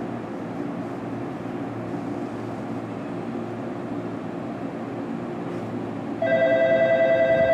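Steady rumble of an electric train running in alongside a station platform, then about six seconds in an electric platform bell starts ringing loudly, a continuous metallic ring that pulses quickly.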